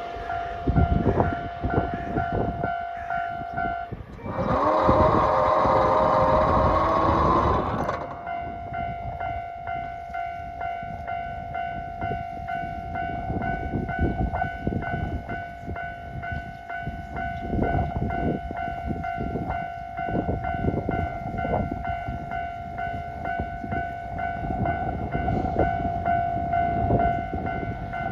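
A train passing with low rumbling and wheel knocks, and a loud horn blast of about four seconds, starting about four seconds in. Under it, a steady ringing tone from a level-crossing alarm.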